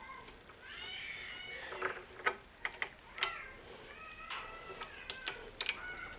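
A cat meowing twice, each meow drawn out over about a second, with several sharp small clicks of metal parts being handled in between and near the end.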